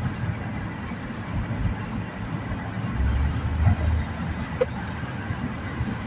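Steady low rumble of a car cruising on the freeway, heard from inside the cabin: tyre and engine noise, swelling heavier for about a second around three seconds in, with a single short click a little later.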